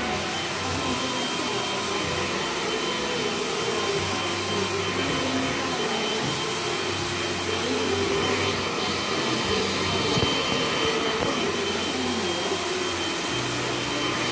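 Handheld hair dryer running steadily during a blow-dry, a continuous rush of air with a thin, steady high whine.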